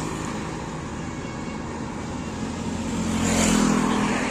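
Road traffic: a vehicle passes about three and a half seconds in, over a steady low engine hum.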